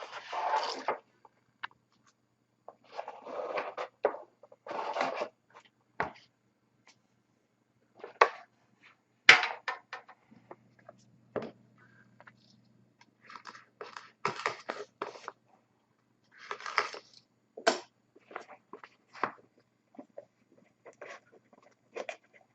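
Plastic shrink-wrap being torn and crinkled off a sealed trading-card tin, in short irregular bursts, with sharp clicks and knocks from handling the tin.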